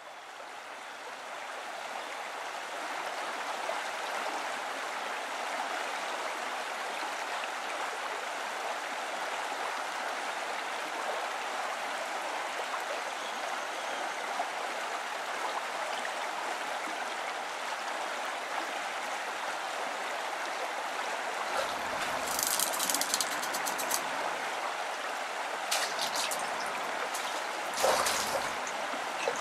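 Steady flowing river water, fading in over the first couple of seconds. Near the end, several short bursts of splashing break in: a fish thrashing at the surface.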